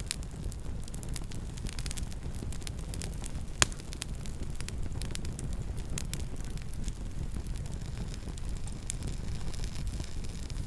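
Campfire crackling: scattered small pops and snaps over a steady low rumble, with one loud, sharp pop about three and a half seconds in.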